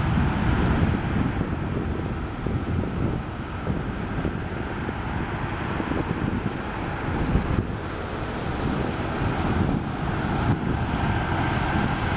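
Boeing 757-200's Rolls-Royce RB211 turbofans at takeoff thrust: a deep, crackling jet rumble, fairly steady and easing off only a little.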